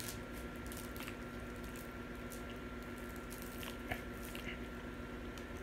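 Someone eating: small wet mouth sounds and scattered short clicks of chewing, over a steady faint hum.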